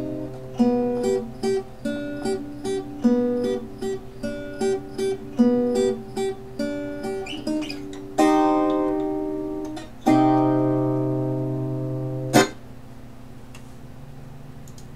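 Seven-string acoustic guitar closing a song: a fingerpicked run of single notes and short chords, then two strummed chords left to ring. A sharp slap on the strings cuts the sound off.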